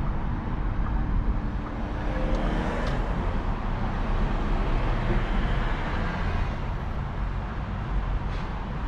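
Low road and tyre rumble heard inside the cabin of a Volkswagen ID.3 electric car as it slows from about 15 km/h to a standstill.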